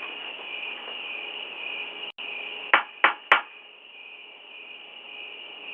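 Three sharp clacks about a third of a second apart, a little past halfway through: a front door being pulled and rattled against its lock, over a steady high background hiss.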